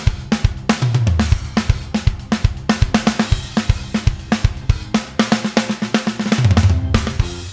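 Steven Slate Drums 5 Free sampled drum kit playing a steady groove of kick, snare, hi-hat and cymbals. Two low falling runs, like tom fills, come about a second in and near the end.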